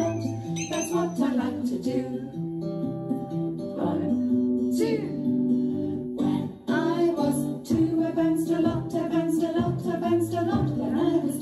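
Children's song playing: plucked guitar accompaniment with singing, with a brief drop in loudness about six and a half seconds in.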